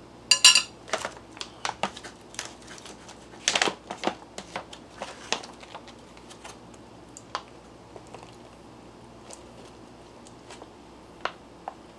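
A fork clinks on a plate, then a foil mylar food pouch crinkles and rustles as it is handled and rehydrated stir fry is tipped out of it. The clicks and crinkles come in a busy run over the first few seconds and thin to a few scattered ticks after that.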